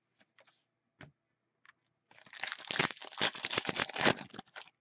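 Hands handling and shuffling a stack of hockey trading cards: a couple of light clicks, then about two and a half seconds of dense, crinkly rustling and clicking.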